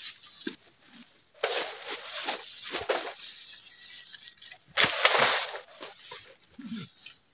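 Leafy branches rustling and shaking as a long pole is worked up into a bamboo thicket, in two main bouts about one and a half and five seconds in, the second the loudest.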